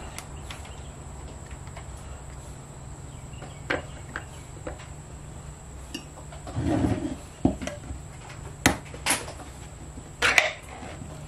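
Scattered clicks and knocks of kitchenware over a steady low hum: a plastic spatula and measuring cup tapping a stainless steel mixing bowl, the cup set down on a stone countertop, and a can picked up. The sharpest clicks come in the last few seconds.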